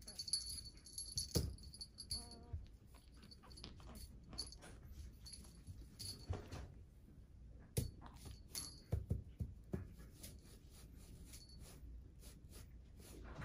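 Small jingle bell on a cat wand toy tinkling as a kitten bats at it, with scattered soft taps and knocks of paws and the toy on fabric.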